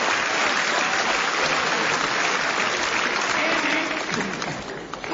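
Live theatre audience applauding, a dense clapping that fades away near the end.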